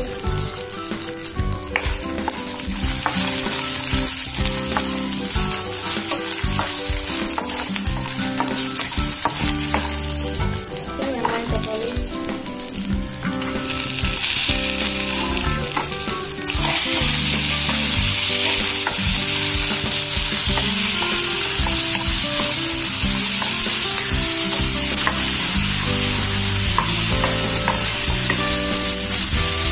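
Spices, garlic, ginger, shallots and tomatoes frying in oil in a nonstick kadai, sizzling steadily while a wooden spatula stirs them. The sizzle gets louder a little past halfway through.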